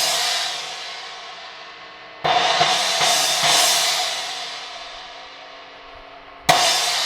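Sabian AA 18-inch China cymbal, its cracked area cut out, struck several times and left to ring. One crash is dying away, a fresh strike with a few quick follow-up hits comes about two seconds in and slowly decays, and another strike lands near the end.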